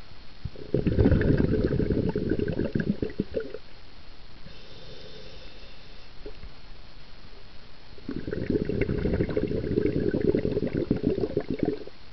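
Scuba regulator exhalation bubbles heard underwater: two long bubbling breaths out, one starting about a second in and lasting about three seconds, the other starting around eight seconds and lasting about four, with a quieter breath in through the regulator between them.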